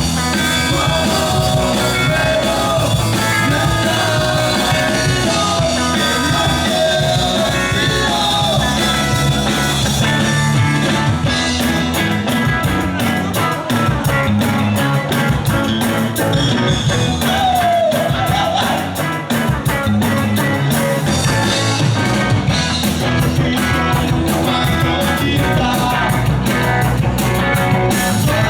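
Rock band playing live with a singer, guitar and drums; a steady, fast cymbal beat comes in about twelve seconds in.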